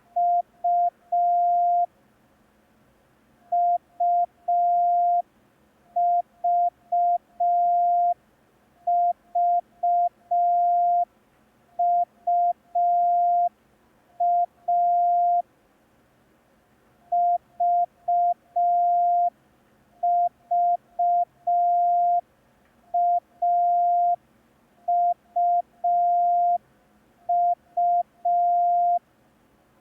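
Morse code practice tone: a single steady pitch keyed on and off in short dots and longer dashes, sending letter groups made only of A, U and V.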